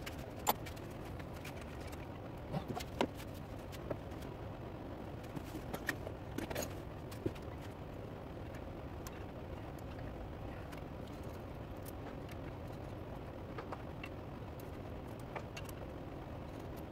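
Scattered metal clinks and knocks from hands working a metal lathe's chuck and tool post, over a steady low hum; the clinks come more often in the first half.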